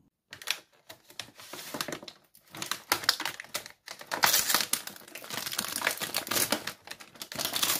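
Plastic packaging of a microwave burger crinkling and crackling as it is handled and opened, a run of irregular clicks and rustles.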